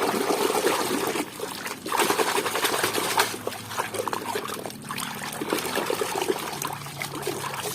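Water trickling and splashing as a muddy toy is rinsed and rubbed clean by hand in clean water.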